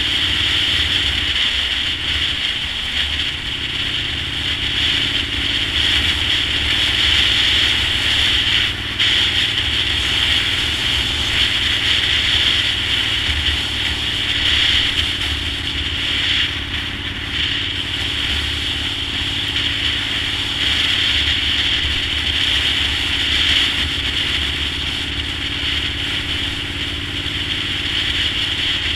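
Honda VTR1000's V-twin engine running at a steady road speed, heard as a pulsing low note under steady wind and road noise. The engine note breaks briefly about two seconds in.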